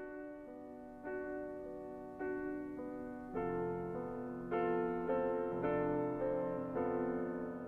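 Outro music: keyboard chords in a piano sound, struck about once a second and each fading away, getting louder about three seconds in.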